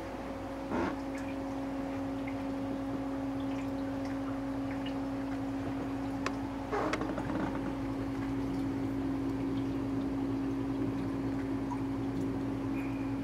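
Reef aquarium pumps running: a steady electric hum over the sound of circulating water, with two brief louder noises, about a second in and about seven seconds in.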